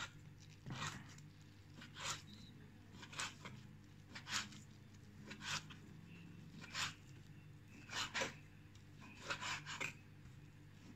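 Kitchen knife slicing raw beef tripe on a wooden cutting board: a short scraping cut about once a second, coming a little faster near the end.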